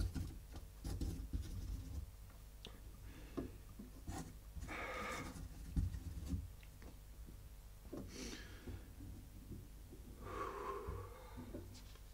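Feather quill pen scratching and tapping on paper in short, scattered strokes, faint, with two longer soft breaths about five and ten seconds in.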